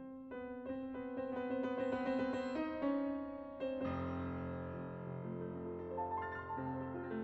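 Piano music: a run of separate notes, then fuller chords with low bass notes coming in about four seconds in.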